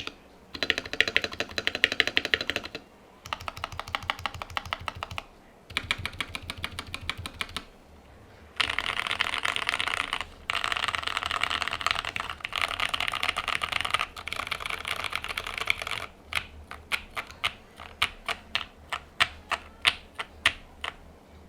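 An NJ68 mechanical keyboard by Keydous, with lubed Jwick T1 tactile switches, PBT keycaps and a steel plate, typed on fast in bursts with short pauses between them. In the last five seconds or so the keys are pressed one at a time, about two strokes a second.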